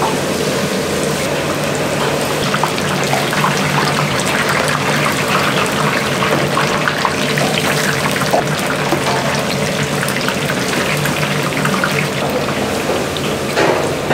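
Running water splashing steadily with scattered small clatter, over a steady low hum.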